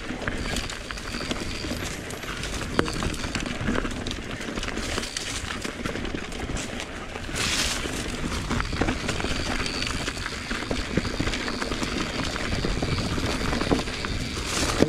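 Mountain bike rolling over a dirt singletrack: steady tyre rumble with the bike's chain and frame rattling over small bumps. There is a short hiss about halfway through and a sharp knock near the end.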